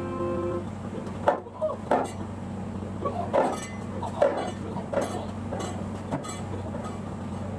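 Kathakali percussion ensemble playing sparse, irregular sharp strokes of drum and metallic cymbal or gong, over a steady low hum.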